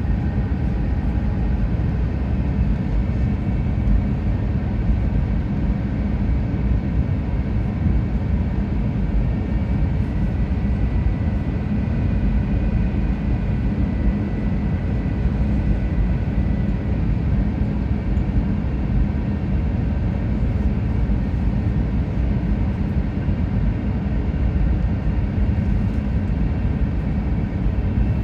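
Steady cabin noise inside an Airbus A350 in flight: a loud, even low rumble of airflow and its Rolls-Royce Trent XWB engines, with faint steady whining tones above it.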